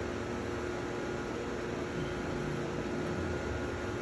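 Steady background hiss with a constant low hum, like a fan or ventilation unit running in the room; no distinct event stands out.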